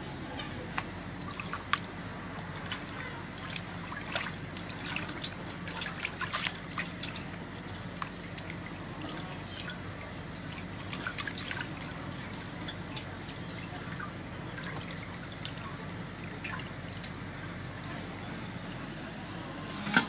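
Water splashing, trickling and dripping in a metal basin as a slab of raw pork is washed by hand, with small irregular splashes throughout. One sharp metal clank near the end as a pot lid is lifted.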